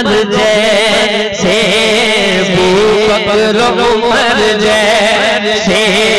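A man singing a naat: a long, drawn-out line with a wavering, ornamented pitch, over a steady low drone.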